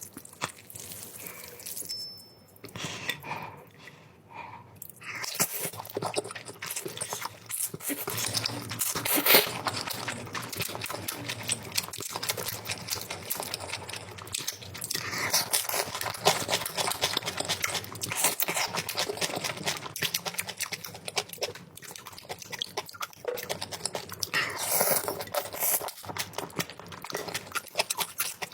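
Close-miked mouth sounds of someone eating spicy instant noodles, kielbasa sausage and dumplings: wet chewing and biting, with a continual run of crackly smacks.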